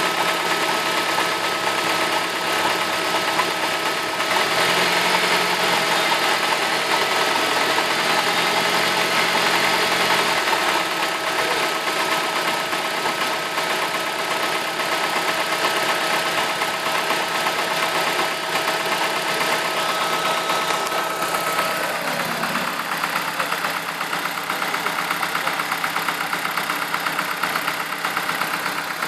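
BMW E46 318's four-cylinder engine idling with a knocking noise, the fault the owner is recording. About two-thirds of the way through, a steady whine stops and a quick, even ticking rhythm comes through more plainly.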